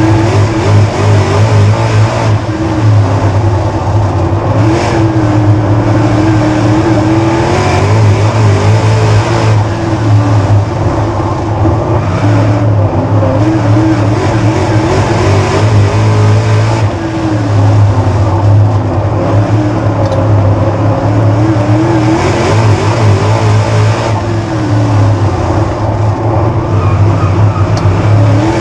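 Dirt late model's Chevrolet 604 small-block crate V8 at racing speed, heard from inside the cockpit. The engine note climbs and drops back repeatedly, every few seconds, as the car laps the track.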